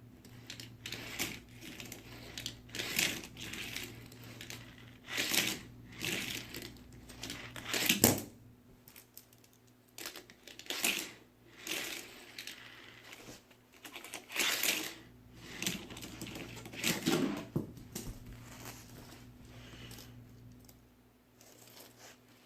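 Plastic Hot Wheels track pieces and Lego supports handled and fitted together: irregular clicks, knocks and rattles, the loudest knock about eight seconds in.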